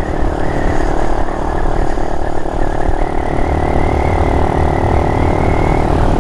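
Small single-cylinder mini motorcycle engine running at a steady cruising speed, its pitch edging slightly higher about halfway through, with wind rumble on the microphone.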